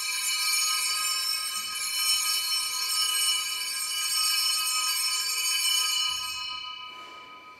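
Altar bells ringing at the elevation of the chalice, marking the consecration at Mass. A bright ringing holds steady for about six seconds, then dies away near the end.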